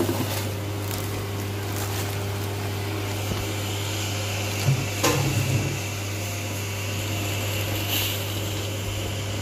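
A steady electric hum like an appliance fan or motor, with a few light knocks and clinks of a metal ladle and spoon against a stainless steel pot as sugar goes into a dark marinade. The loudest knocks come about five seconds in and again near the end.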